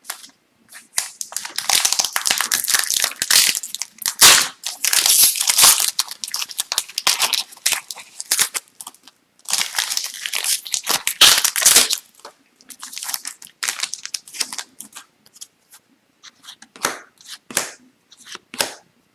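Wrappers of hockey card packs being torn open and crinkled, a dense crackling for the first twelve seconds or so, then sparser clicks and rustles.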